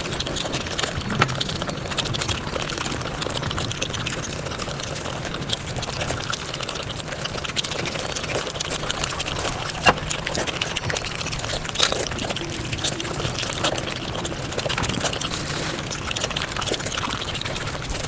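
Mukbang eating sounds sped up five times: a dense, continuous run of chewing, smacking and crunching crackles, with a few sharper clicks, the loudest about ten seconds in.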